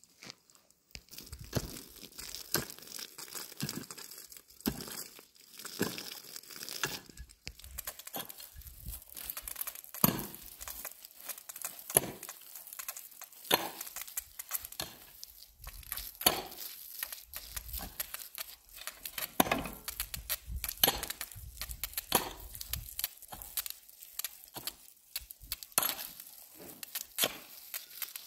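Irregular crinkling and crackling with many sharp clicks, starting about a second in: something dry or papery being handled or crushed.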